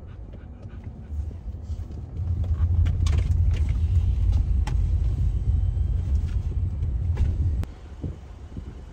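Car cabin while driving: low engine and road rumble that grows louder about two seconds in and drops off suddenly near the end, with a few faint clicks and knocks.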